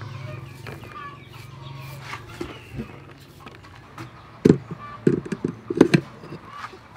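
Hard clunks and knocks of a countertop blender's jar being set onto and fitted to its motor base: one knock about four and a half seconds in, then a quick cluster of knocks around five to six seconds. Chickens cluck in the background.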